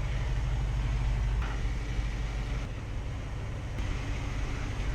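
Flatbed tow truck's engine idling with a steady low rumble.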